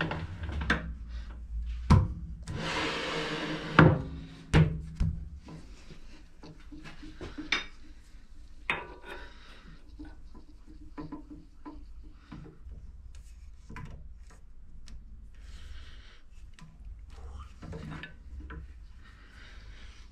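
Steel tube and metal lathe parts being handled at a lathe chuck while setting up to press on a tight-fitting part. A few sharp metal clunks come in the first five seconds, with a scraping rub about two seconds in. Lighter knocks and rubbing follow.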